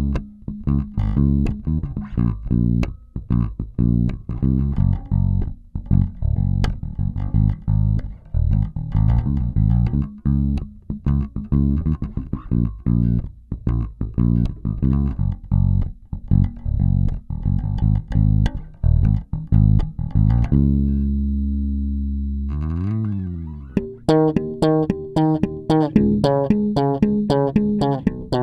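Five-string electric bass playing a fast fingerstyle riff on a Warwick Corvette Standard with a bubinga body. About three-quarters of the way through a low note is held and slides. After that a Warwick Thumb bolt-on five-string takes over, its notes with sharper, brighter attacks.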